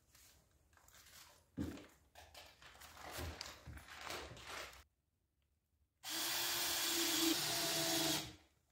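A wooden bench frame is shifted and set down, with knocks, scraping and a thump about one and a half seconds in. After a brief silence, a handheld power tool runs steadily with a humming whine for about two seconds and then stops, the loudest sound here.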